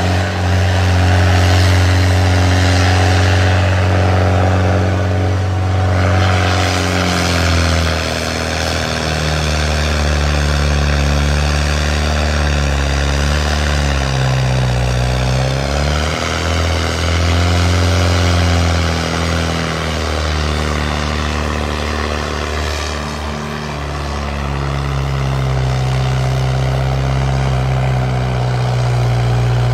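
New Holland tractor's diesel engine running hard while pulling a disc harrow through dry soil. Its note sags under the load around the middle and again about two-thirds through, then picks back up.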